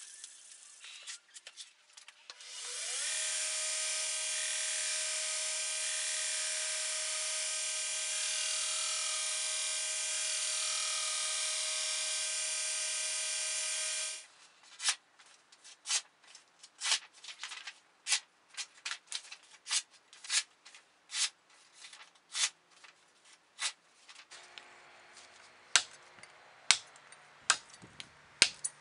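A few light scrapes of abrasive paper on a steel blade, then a belt grinder spinning up with a rising whine and running steadily for about eleven seconds before cutting off. After it come irregular sharp clicks and knocks, and near the end a few louder chops of a blade biting into a wooden log.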